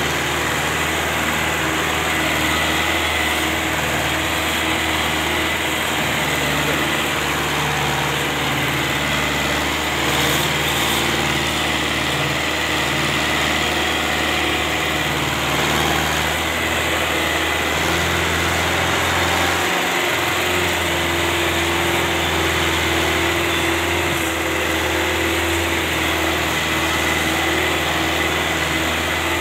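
Belarus 510 tractor's four-cylinder diesel engine running steadily under load while pulling a heavily loaded sugarcane trolley, its note shifting slightly about two-thirds of the way through.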